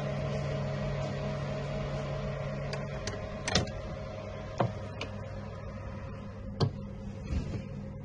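Steady electric hum of a switched-on puppy incubator's fan, with several sharp clicks and knocks in the second half.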